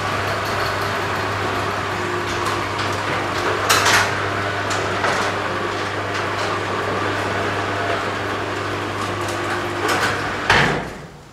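Motorised sectional garage door opening: a steady motor hum with rattling and clanking from the door panels and track, a louder clank about four seconds in, and a loud clunk near the end as the door reaches the top and the motor stops.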